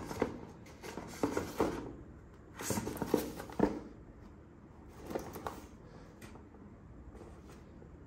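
Cardboard toy box being handled and turned in the hands: scraping, rustling and light taps of fingers on cardboard in several short bursts, the busiest stretch a little before the middle.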